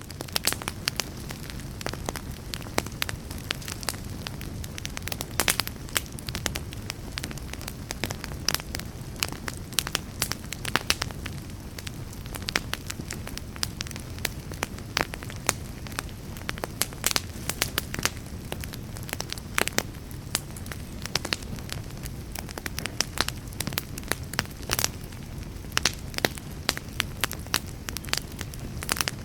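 Wood fire burning in a fireplace: a steady low rumble of flames with irregular sharp crackles and pops, a few of them loud.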